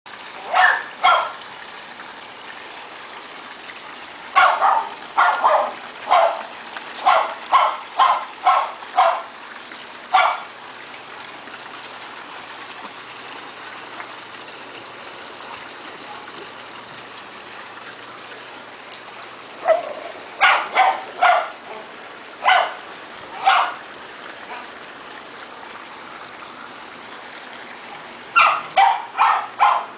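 A dog barking in quick runs of short, sharp barks: a pair at the start, a run of about ten, a long pause, then two more runs. A steady hiss sits underneath.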